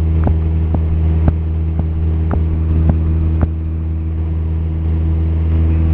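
The Cessna 172P's four-cylinder Lycoming O-320 engine and propeller drone steadily in flight, heard from inside the cabin as a deep, even hum. Faint clicks come about twice a second during the first three and a half seconds.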